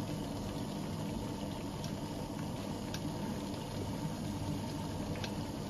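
Large stainless-steel pot of salted water heating on the hob with a whole cabbage in it: a steady low rumble and hiss of water coming up to the boil, with a few faint ticks.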